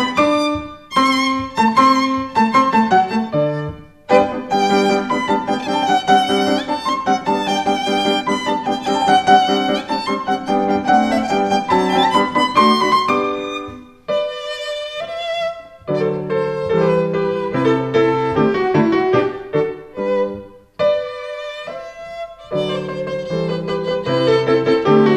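Violin playing a melody with vibrato over a lower accompaniment, the phrases broken by short pauses about 4, 14 and 21 seconds in.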